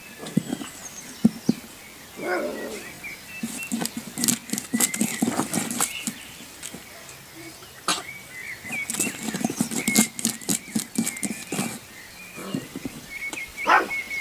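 Golden retriever puppy nosing and pawing at a thin wooden board on concrete: irregular scrapes, taps and clicks, busiest in short flurries.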